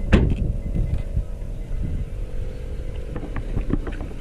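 A motor running steadily with a low rumble and a steady hum. There is a sharp, loud click just after the start and a few light knocks near the end.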